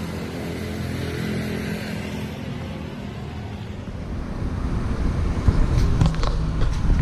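Mitsubishi Fuso truck's diesel engine running with a steady hum that fades after about three seconds, giving way to louder low road rumble with a few sharp knocks near the end.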